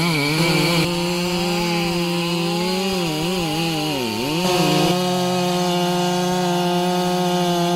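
Two-stroke chainsaw running at full throttle while cutting timber. Its pitch dips several times about three to four seconds in as the chain loads up, then holds steady and high.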